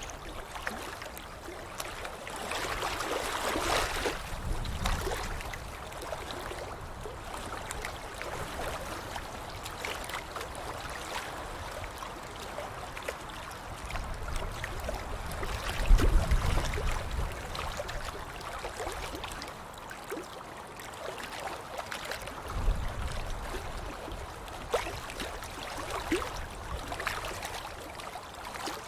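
Water splashing and sloshing throughout, with many small droplet ticks and heavier splashes about 4 seconds in, about 16 seconds in (the loudest) and about 23 seconds in.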